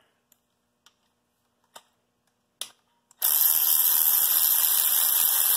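Cordless electric ratchet spinning out the 10 mm bolt on a belt tensioner: a few light clicks as the socket goes on, then a little past halfway a loud, steady motor whir that runs on for about three seconds.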